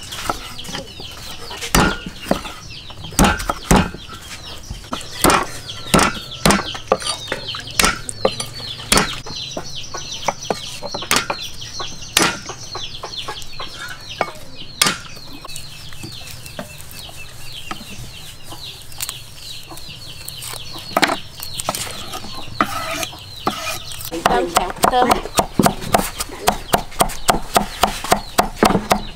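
A knife blade knocking on a thick wooden chopping block as tomatoes are sliced, with scattered single strikes. Near the end a cleaver chops garlic cloves on the block in a fast, even run of about three strikes a second.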